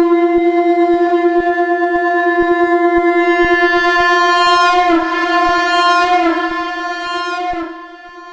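Shankh (conch shell) blown in one long held note at F, loud and steady with a slight waver. It weakens in its last seconds and drops to a faint lingering tone near the end.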